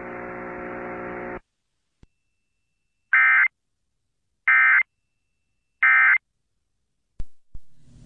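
Emergency Alert System end-of-message data tones: three short, identical bursts of digital data, about a second and a half apart. These signal the end of the alert. Before them, a steady buzz cuts off about a second and a half in.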